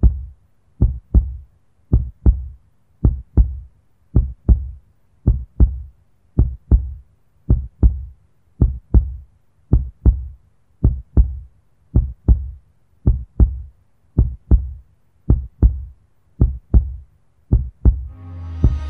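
Heartbeat sound effect: slow, paired lub-dub thumps, about one beat a second. Near the end, a rising swell of noise comes in.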